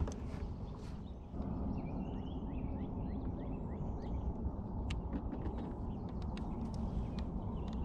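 Birds chirping in quick short notes over a steady low rumble, with a few sharp clicks in the second half.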